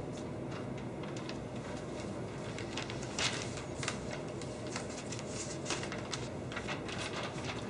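Steady room hum with scattered light taps and clicks as a person walks across a classroom floor, more of them in the second half.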